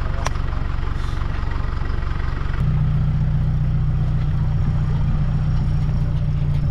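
Pickup truck's engine idling with a steady low hum, which gets louder about two and a half seconds in, with one sharp click just after the start.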